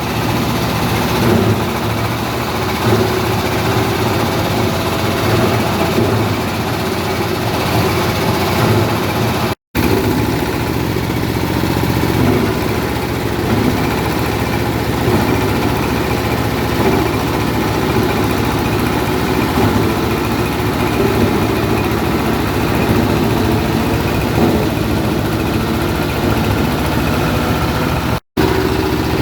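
Coconut-husk grinding machine for making cocopeat, running steadily with a low engine-like drone and a churning mechanical noise. The sound cuts out for an instant twice.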